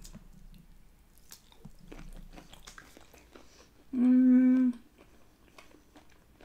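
Close-miked chewing of a boiled shrimp, with many faint wet mouth clicks. About four seconds in comes a held "mmm" hum at one steady pitch, lasting under a second.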